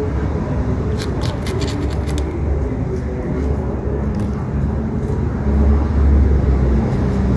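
A knife scraping and cutting at a fish's skin in a few quick strokes about a second in, over a steady low rumble that swells about two-thirds of the way through.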